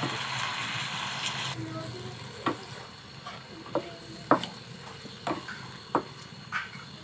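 Chicken pieces sizzling in hot oil in a pan, the hiss cutting off suddenly about a second and a half in. Then a wooden spatula stirring them, knocking against the pan about six times, the loudest a little past halfway, over a faint sizzle.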